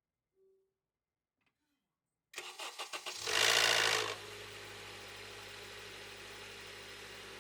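Honda Odyssey RB3's 2.4-litre four-cylinder engine cranked by the starter for under a second, catching with a loud burst of abnormal noise that lasts about a second, then settling into a steady idle. The start-up noise appeared after a routine inspection, and the owner links it to the VTC actuator.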